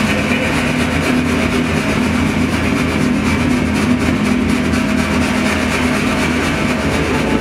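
Performance soundtrack: a loud, steady, dense droning noise with a few held low tones, unchanging throughout.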